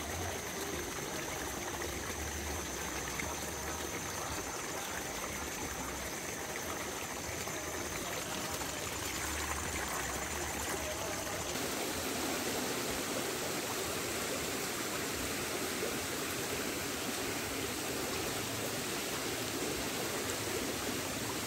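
Small stream running over rocks, a steady rush of water that becomes fuller and slightly louder about halfway through.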